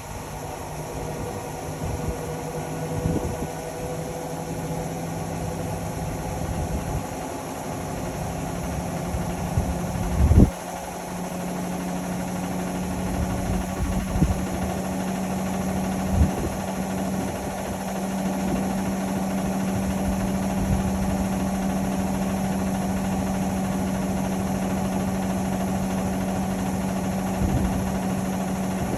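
Indesit Innex XWA 81252 washing machine running, most likely spinning: a steady motor hum that steps up in pitch about a third of the way in and again a little later as the drum speeds up, with a few short knocks, the loudest about a third of the way in.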